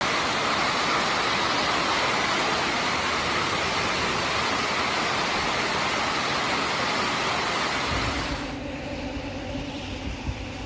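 Heavy rain mixed with hail pelting a wet paved surface, a loud, dense, steady hiss. About eight seconds in it cuts to a quieter low rumble.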